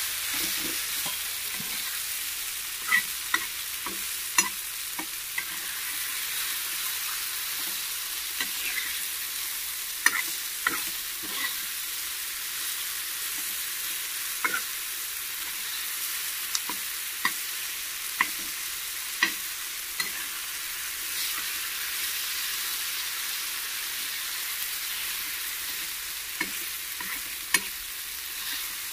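Eggplant bharit mash sizzling in hot oil in a non-stick pan while a metal spatula stirs it. The spatula scrapes the pan and clacks against it at irregular moments, every second or two, over a steady sizzle.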